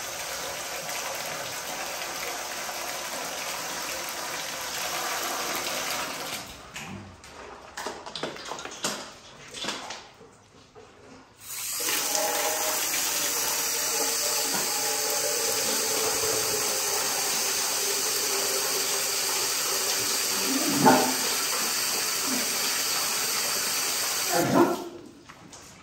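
Garden hose spraying water onto wire dog cages and a concrete kennel floor, a steady hiss that breaks up and stops for a few seconds in the first half, then starts again. A dog barks briefly twice in the second half.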